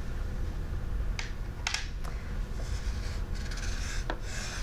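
Soft rubbing and a few light clicks of small objects and letter cards being handled on a table, over a steady low hum.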